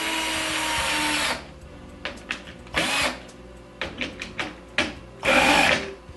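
A cordless drill driving set screws through a metal drawer-slide bracket into a wooden cabinet frame. It runs in spurts: a long run of about two seconds at the start, a brief burst around three seconds in, and another a little after five seconds, with light clicks in between.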